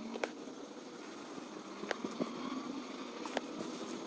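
A few light clicks and taps of a metal sliding-gate roller carriage being handled, over a faint, steady background hiss.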